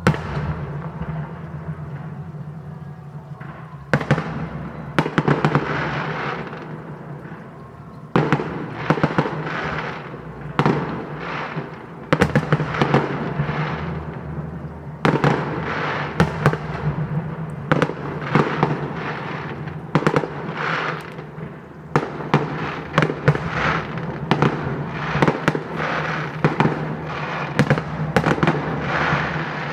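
Aerial fireworks going off in a continuous display: sharp bangs every second or two, many of them followed by crackling.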